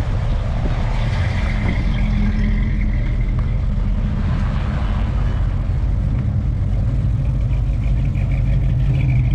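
Classic and muscle car engines running as cars drive slowly past in a line, a steady low rumble.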